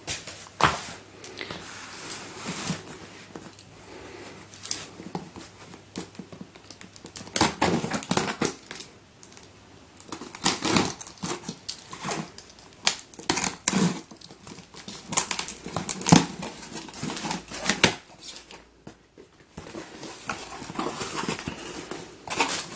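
Hands opening a taped cardboard box: tape tearing and cardboard flaps scraping and rustling in irregular bursts, with packing paper crinkling near the end.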